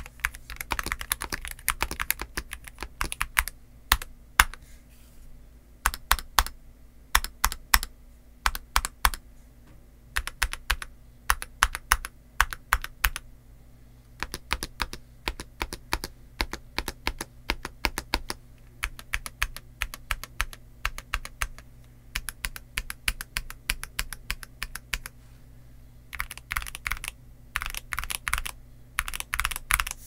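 Akko MOD007B HE PC mechanical keyboard with Cream Yellow magnetic Hall-effect switches and dye-sub PBT OEM keycaps being typed on. Fast runs of key strokes at the start and near the end, with more separate, sharper strokes in small clusters in between.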